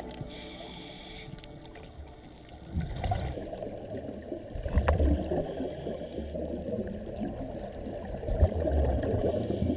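Underwater bubbling and gurgling from scuba divers' exhaust bubbles, with a few heavier low surges a couple of seconds apart.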